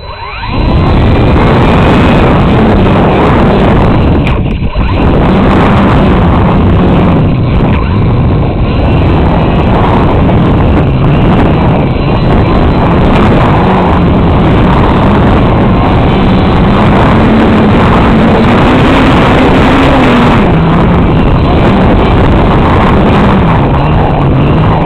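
Electric motor and propeller of an E-flite UMX Radian RC glider running under power, picked up by a camera on the plane in flight along with loud wind rush over the microphone. It comes up suddenly about half a second in, and its droning pitch wavers up and down.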